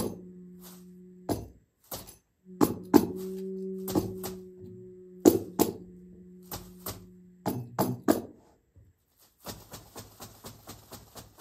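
Slow improvised music: an end-blown flute holds long low steady notes while a small frame drum is struck with sharp single hits. The flute stops after about seven and a half seconds, and near the end quick light ticking percussion takes over.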